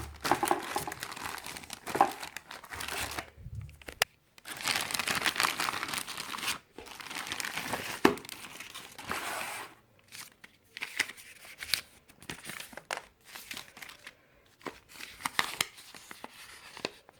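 Packaging being crinkled and torn open by hand, with scattered crackles and clicks as the instruction booklets are unwrapped.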